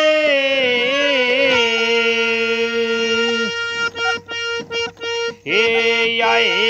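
Harmonium playing long held notes, with a sung vowel sliding in pitch over them, as in the drawn-out opening of a Haryanvi ragni; a run of short choppy notes comes midway.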